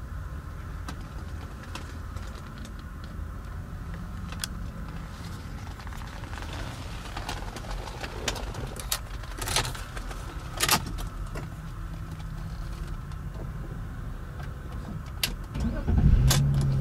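BMW X5 E53's engine idling steadily, heard from inside the cabin, with scattered clicks and knocks and a heavier thump near the end.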